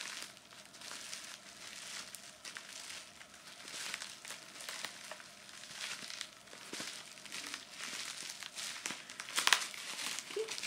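Plastic bubble wrap being crinkled and squeezed by hand: a continuous crackling and rustling of many small clicks, with one louder crack near the end.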